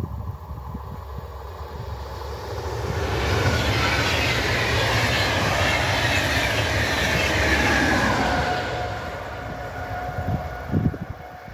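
DB Intercity passenger train with an electric locomotive passing at speed: the rushing wheel-and-rail noise swells about three seconds in, holds for some five seconds as the coaches go by, then fades as the train moves away. Wind buffets the microphone throughout, with a short knock near the end.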